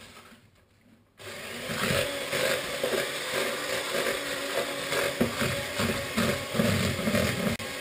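Electric hand mixer switching on about a second in and running steadily while creaming butter and sugar in a bowl, its beaters knocking and scraping against the bowl.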